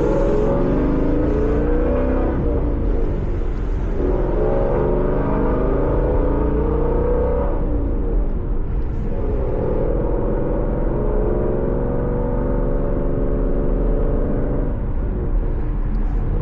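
Ford Mustang GT's 5.0 Coyote V8 through a Corsa Xtreme cat-back exhaust, accelerating through the gears: the engine note climbs and drops at two upshifts, then settles to a steady cruise.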